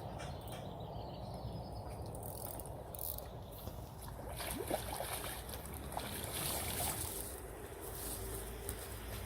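Faint water trickling and lapping under a steady low rumble, with a few light ticks.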